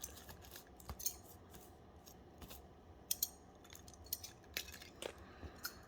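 A few faint, separate snips and clicks spread through, from pulling the wires out of an RJ45 plug and cutting the patch cable's end back to strip it again.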